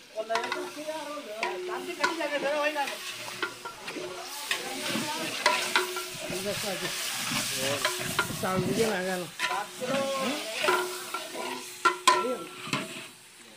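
Long metal ladle stirring and scraping inside a large metal degh cooking pot, with the contents sizzling in ghee, and repeated scrapes and knocks of the ladle against the pot.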